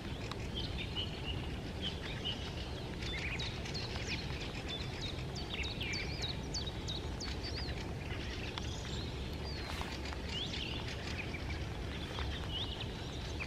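Common chiffchaff singing its string of quick, repeated high notes, mixed with other birdsong, over a steady low rumble.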